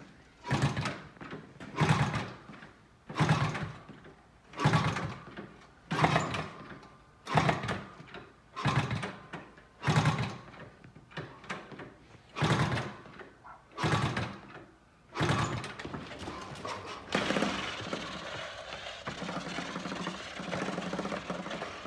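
A freshly rebuilt Honda CT70's small single-cylinder four-stroke engine being kick-started over and over: about a dozen kicks roughly one and a third seconds apart, each turning the engine over without it catching. The ignition key has not been switched on. Near the end a steadier noise takes over.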